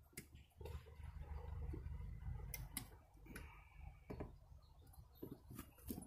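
Scattered light clicks and taps of a hand tool and wire against a GFCI receptacle as its short ground wire is bent around the green ground screw. There are about eight clicks, a few of them close together near the end.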